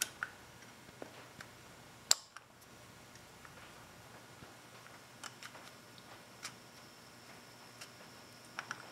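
Faint, scattered small metal clicks of a snap ring and clutch release ramp being worked into place in a motorcycle clutch release cover, with one sharper click about two seconds in.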